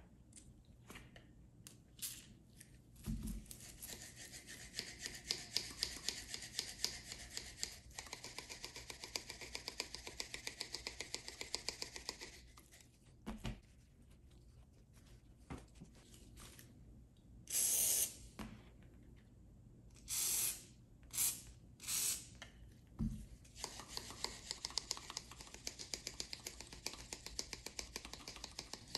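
Stiff new lineman's pliers worked rapidly open and closed, a fast gritty clicking rasp from the pivot packed with valve grinding compound and WD-40, as it is lapped loose. Partway through, a few short hissing bursts of WD-40 aerosol sprayed into the pivot, then the rapid working starts again.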